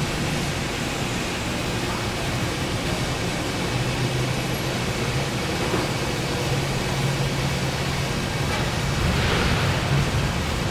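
Steady machinery noise of a metalworking factory floor: an even rushing noise over a low hum, swelling slightly near the end.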